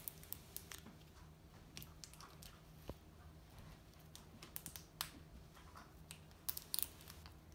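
Faint, scattered plastic clicks and ticks of fingers and fingernails prying and twisting at an LOL Surprise toy ball that will not come open easily, with a small cluster about five seconds in and more near the end.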